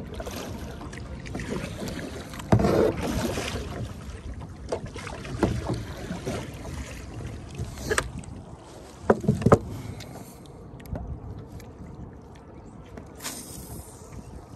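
Water sloshing against a kayak's hull on a choppy, windy lake, with wind buffeting. A few sharp knocks stand out, one about two and a half seconds in and a cluster around eight to nine and a half seconds.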